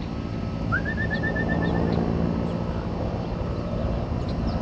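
A small bird's short trill about a second in: one rising note, then a quick run of about eight even notes. Under it is a steady low outdoor rumble.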